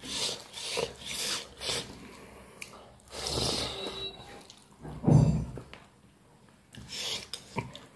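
Close-up eating sounds: wet chewing and lip smacks, with fingers gathering rice on a banana leaf, in short irregular bursts. A louder low thump comes about five seconds in.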